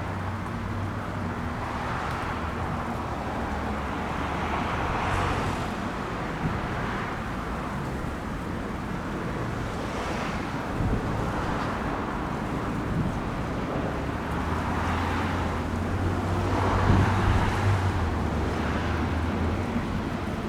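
Wind on the microphone and surf washing in, the hiss swelling and fading every few seconds over a low steady rumble of traffic.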